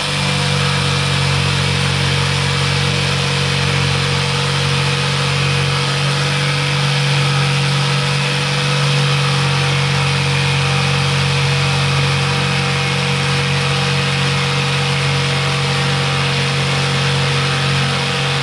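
Electric saw running steadily as it cuts the sink opening through a newly installed countertop, a loud, even motor hum with cutting noise over it.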